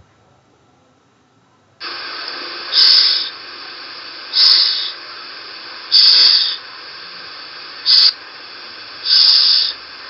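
A woman's voice saying the English consonant /ʃ/, the 'sh' sound, five times as short hisses about one and a half seconds apart. Under them is a steady recording hiss that starts about two seconds in.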